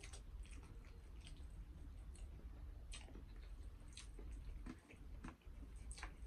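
A person chewing a mouthful of rice and pork with wet, irregular mouth clicks and smacks, over a faint steady low hum.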